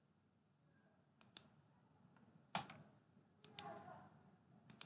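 Computer mouse clicking: a handful of short, sharp clicks, several in quick pairs, the loudest about halfway through.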